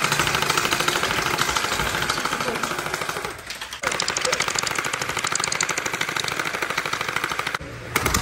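Battery-powered gel ball blaster firing on full auto: a fast, even stream of shots over the buzz of its electric motor and gearbox. The stream stops briefly twice, a few seconds in and again near the end, and picks straight back up each time.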